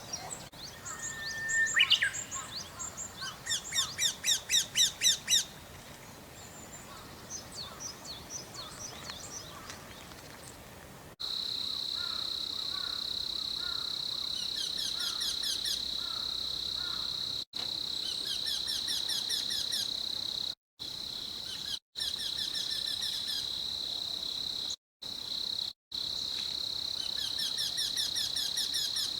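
Eurasian wryneck song: a run of short, evenly spaced, repeated high notes, given several times. From about eleven seconds in, a steady high insect drone runs beneath it.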